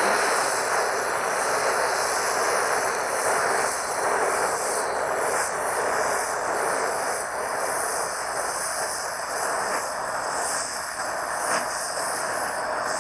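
Oxy-fuel torch flame hissing steadily as it heats a steel strip for bronze brazing, with a filler rod being fed into the joint.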